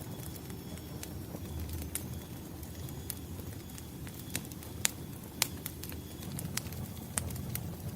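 Firewood burning: a low, steady rumble of flames with irregular sharp crackles and pops, two louder pops about five seconds in.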